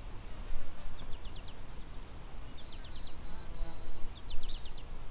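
Small birds singing outdoors: repeated quick trills of high ticking notes, with three short high buzzy notes in the middle, over a low steady rumble.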